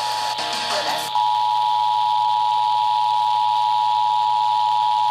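Emergency Alert System attention signal, the steady two-tone alert broadcast over the radio. It is faint at first and becomes loud about a second in, then holds unchanged, with a hiss of broadcast noise underneath.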